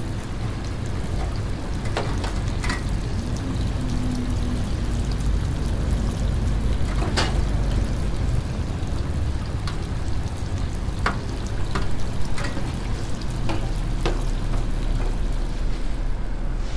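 Twisted doughnuts sizzling in a steel deep fryer full of hot oil, over a steady low rumble. A wire-mesh skimmer clinks sharply against the fryer a handful of times as the doughnuts are scooped out.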